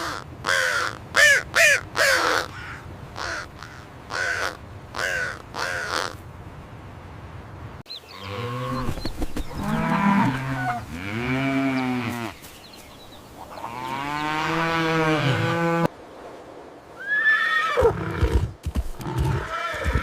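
Animal calls in three separate clips one after another: short repeated calls first, then long calls that rise and fall in pitch, and near the end a high call that falls in pitch.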